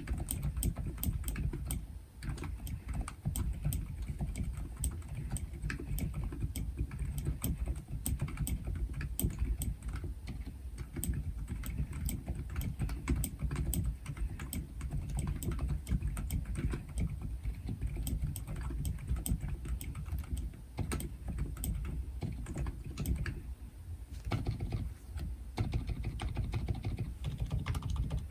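Typing on a Womier K66 keyboard fitted with Silent Alpaca silent linear switches, lubed with Krytox 205g0 and filmed, on a deskmat: a steady run of muted keystrokes, with a short lull about two seconds in and another near the end.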